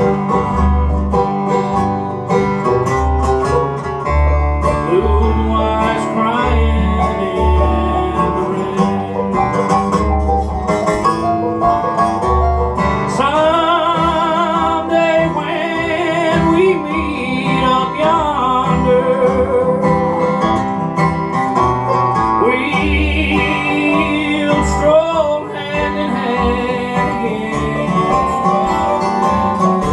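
Acoustic bluegrass band playing an instrumental passage: steel-string acoustic guitar and banjo, a steady bass line underneath, and a lead instrument carrying a wavering, bending melody.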